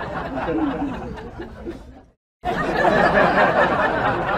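Muffled people's voices with some laughter. The sound cuts out briefly about two seconds in, then carries on.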